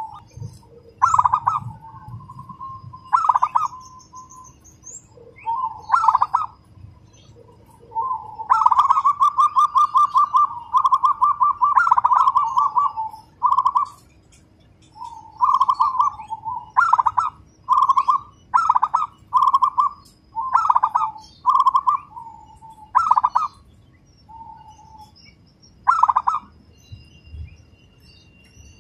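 Zebra dove singing: bursts of quick staccato coos, with a long run of tightly spaced notes about a third of the way in, then short phrases about once a second. Faint chirps of small birds sit behind it.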